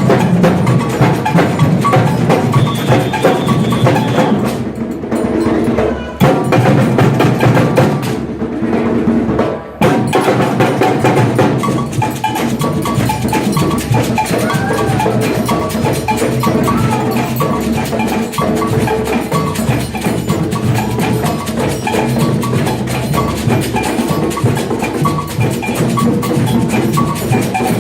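Samba bloco percussion band drumming live, a dense, loud samba groove. The band thins out briefly about five seconds in and again about eight to nine seconds in, then comes back in full about ten seconds in.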